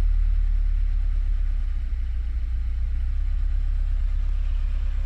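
2016 Subaru WRX's turbocharged flat-four idling steadily with the clutch out, with a faint squeak typical of a worn clutch throwout bearing, which the owner suspects.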